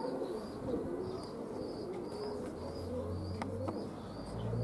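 Domestic pigeons cooing, with a regular series of short high chirps about twice a second; a low hum comes in about two-thirds of the way through.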